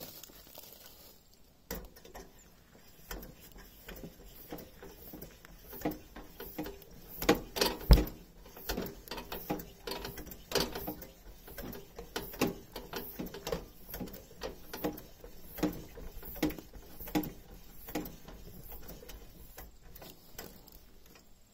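The hand pump on a Coleman Dual Fuel 424 camp stove's fuel tank is worked stroke after stroke to pressurize the tank. Each stroke gives a short knock, about one and a half a second, fading toward the end.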